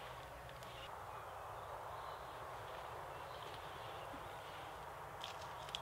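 Quiet outdoor ambience: a faint, steady hiss with a few light clicks near the end.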